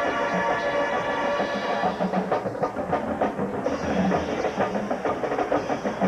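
Marching band playing a jazz number. The brass holds a chord for about two seconds, then the drum line takes over with rapid, dense drumming.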